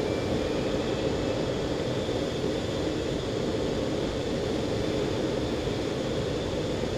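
Steady jet noise inside a jet's cockpit, engine and rushing air together, with a faint high whine.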